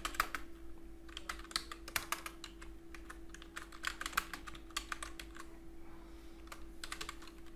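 Computer keyboard typing: clicks of keys in short irregular runs with pauses between them, over a faint steady hum.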